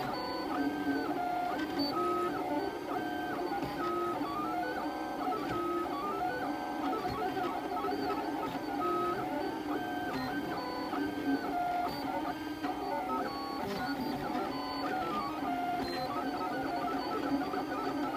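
Ultimaker 3D printer running, its stepper motors whining as the print head traces a gear's outline: the pitch glides up and down in smooth arcs on the curves and jumps between steady tones on straight moves.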